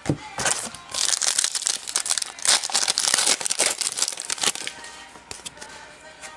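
A sports card pack's wrapper being torn open and crinkled by hand: a dense crackle for about three and a half seconds, starting about a second in, then fainter rustling as the cards are handled.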